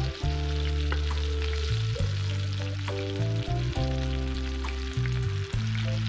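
Chapli kababs shallow-frying in hot oil in a wide iron pan: a steady sizzle with small crackles. Background music with sustained low bass notes that change every second or so is the loudest sound.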